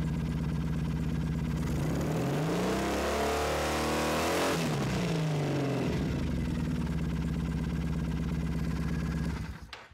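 Triumph Thruxton 900's air-cooled parallel-twin engine idling, revved up once about two seconds in and dropping back to idle by about six seconds, while its charging voltage is read at the battery. The sound cuts off suddenly near the end.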